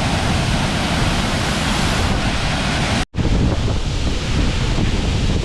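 Waterfall pouring into a pool: a steady, loud rush of falling water. About three seconds in it cuts off abruptly, and a rushing noise with wind buffeting the microphone follows.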